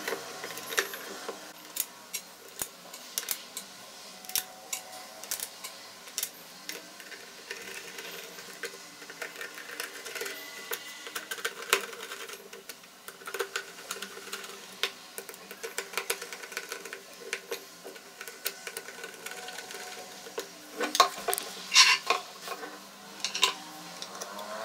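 Plastic housing of a Preethi Blue Leaf mixer grinder being reassembled by hand: irregular light clicks and knocks of plastic parts, screws and a screwdriver, with a louder run of clicks near the end.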